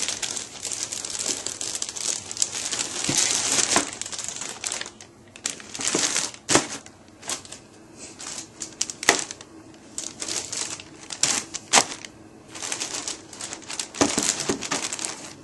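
Plastic wrapping crinkling with parts and cardboard knocking and clicking as model-airplane kit parts are packed back into their box: dense rustling for about the first four seconds, then scattered knocks and clicks.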